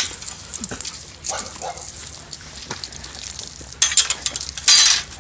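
Labrador puppies whimpering and yipping, with crunching footsteps on gravel that are loudest near the end.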